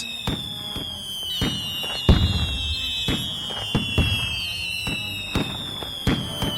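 A series of irregular sharp pops and bangs, a few each second, over a steady high-pitched tone that slowly falls in pitch.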